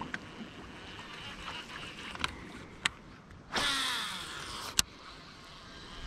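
Baitcasting reel on a cast: the spool whirs as line pays out, its pitch falling as the spool slows over about a second. A few sharp clicks from the reel come before it and one just after.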